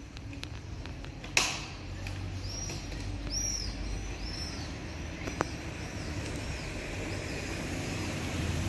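A bird chirping a run of short, high, arched notes over low outdoor rumble, with a sharp knock about a second and a half in and a fainter click later.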